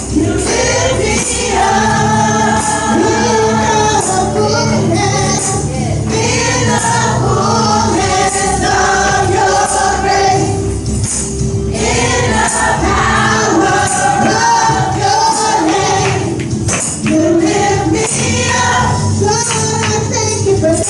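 Live gospel worship music: voices singing long held notes over instrumental backing, with a tambourine shaken along.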